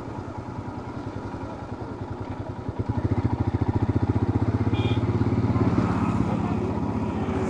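Single-cylinder engine of a Royal Enfield Himalayan motorcycle running with an even, rapid thud of exhaust pulses, getting louder about three seconds in as it is given more throttle.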